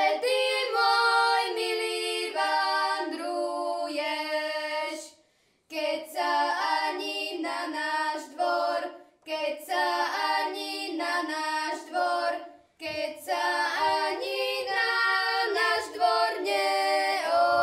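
Girls singing a song together, in phrases of a few seconds with short breaks between.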